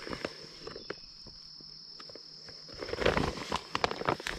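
A bag of diatomaceous earth rustling and crinkling as a hand scoops the powder out. It is briefly at the start and loudest in the last second and a half. Behind it, insects chirr in one steady high note.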